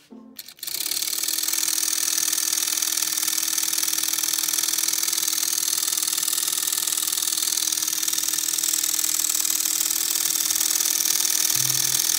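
Homemade 3D-printed brushed DC motor, a magnet-wire coil rotor turning between neodymium disc magnets with bent-wire brushes on its commutator, starting about half a second in as its power lead is clipped on and then running fast and steady. A high-pitched whir with a low steady hum under it.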